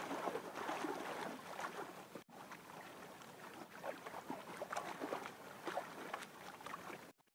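Seawater lapping and splashing against the hull of a small outrigger canoe, with small drips and knocks, as a fishing line is hauled in by hand over the side. The sound briefly cuts out about two seconds in and again near the end.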